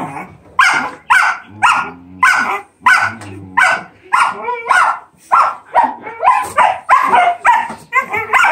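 Giant schnauzer puppies barking and growling in play: a long string of short barks, about two a second, with low growling between some of them.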